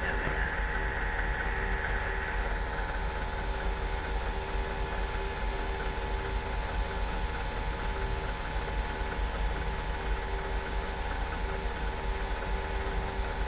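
Vehicle engine running steadily, a low rumble under a constant hum.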